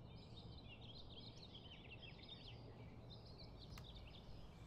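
Faint chirping of small birds, many quick twittering notes, over a low steady background hum, with one faint click near the end.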